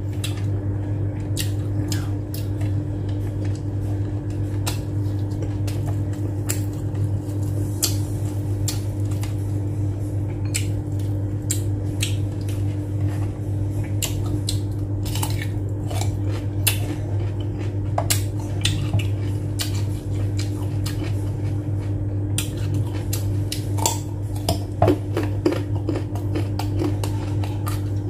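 Close-up eating with the hands: chewing and short scattered clicks of fingers and food against a plate, over a steady low hum.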